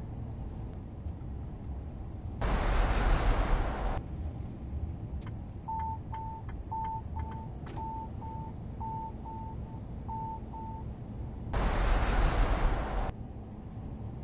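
Truck cab rumble from engine and road, with the cab's driver-assistance warning beeping about ten times, roughly two beeps a second, for about five seconds in the middle. Two loud bursts of rushing noise, each about a second and a half long, come a little after the start and again near the end.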